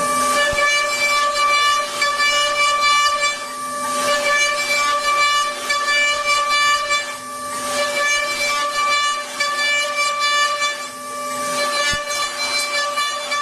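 A machine tool running with a steady whine, while a hissing cutting or grinding sound swells and fades about every four seconds.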